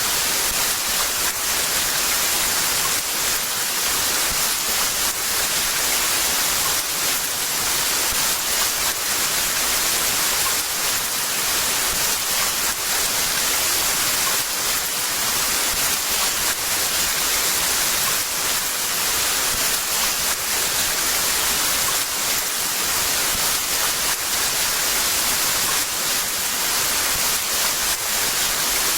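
Heavy rain falling steadily, a dense even hiss with faint patter.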